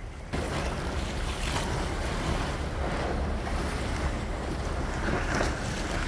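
Steady wind rushing over the microphone, mixed with sea water washing along the shore. It starts abruptly just after the beginning and holds even throughout.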